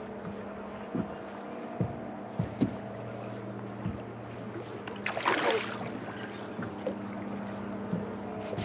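Boat's electric trolling motor humming steadily, with a few light knocks in the first few seconds and a brief splashy burst about five seconds in.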